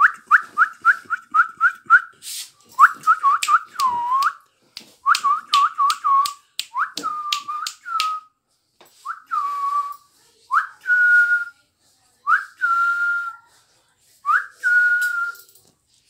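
Indian ringneck parakeet whistling: fast runs of short, clear notes that each sweep up and level off, then slower, longer held whistles about two seconds apart in the second half.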